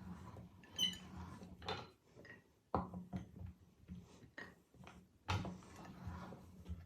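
Meat grinder working through bars of soap: a low steady hum under irregular sharp clicks and knocks, the loudest about three seconds in and again about five seconds in, with faint squeaks.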